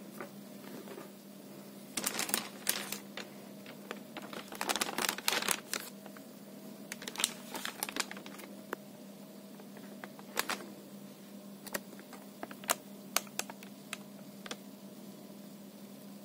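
Irregular light clicks and taps as a laptop palmrest-and-keyboard assembly is handled, coming in short clusters and single clicks, over a steady low hum.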